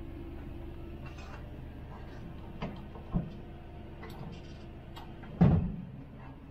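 Cab fittings of a 1966 Dodge A100 being worked. A steady hum stops about a second in as the wiper knob is pushed in, then come a couple of light knocks and one heavy clunk about five and a half seconds in, the loudest sound.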